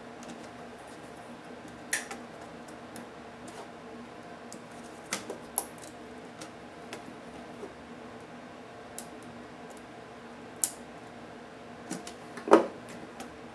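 Scattered small clicks and taps of hands handling an Acer Aspire One netbook's motherboard and plastic chassis during disassembly, with one louder knock near the end, over a steady low hum.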